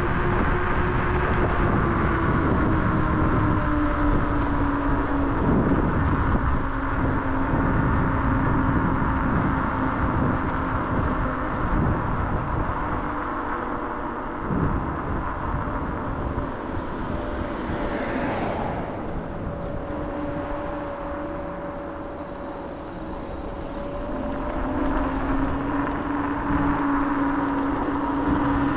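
Kaabo Wolf King GT electric scooter riding at speed: a low rumble of wind over the chest-mounted camera, with a steady electric motor whine whose pitch drifts with speed. The sound eases off a little past the middle and picks up again near the end.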